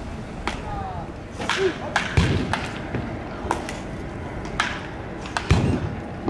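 Baseball batting practice: a bat cracking against balls again and again, with fainter hits from further off and two heavy thuds, about two seconds in and again near the end.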